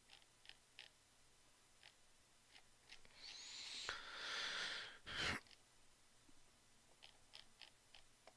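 Faint clicks of a computer mouse scrolling a document, scattered through the quiet. About three seconds in, a person breathes out long and audibly for nearly two seconds, followed by a short, louder puff of breath.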